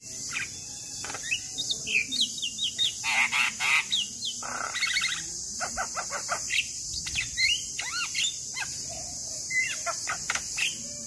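Male Javan myna singing a varied, fast string of whistles, chirps and harsh chattering notes, with quick rattling runs in between.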